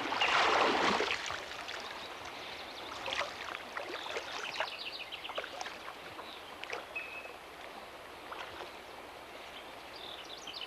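River water splashing loudly in the first second as a person is raised out of the water after baptism by immersion, then lighter sloshing and lapping as people wade, with birds chirping now and then.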